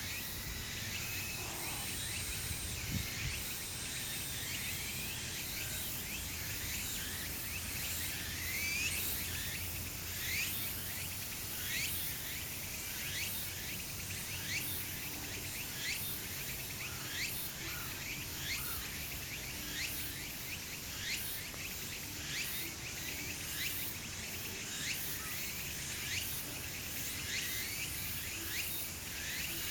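Outdoor ambience: many short, high chirps, each falling in pitch, come about once a second over a steady background hiss.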